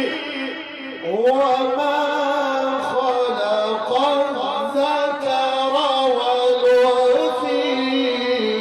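A man's voice in melismatic mujawwad Quran recitation. About a second in, a new phrase sweeps up in pitch and then wavers on long held, ornamented notes before falling away near the end.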